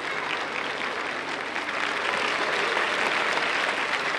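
Audience applauding, swelling louder about two seconds in.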